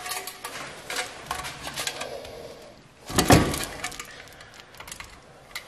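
Stainless steel sheet-metal oven parts and small hardware being handled during assembly: a run of light metallic clinks and clicks, with one louder clank a little after three seconds in.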